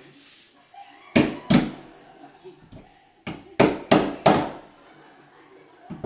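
Hammer blows on an old, jammed doorknob of a wooden door, struck to break the stuck lock: two hard strikes about a second in, a lighter tap just after three seconds, then three hard strikes in quick succession, each with a short ring in the small hallway.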